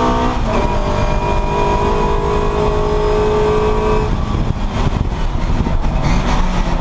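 Classic Mini race car's A-series four-cylinder engine heard from inside the stripped, caged cabin, held at a steady high pitch for about four seconds. The steady tone then fades into a rougher sound, and the revs climb again near the end.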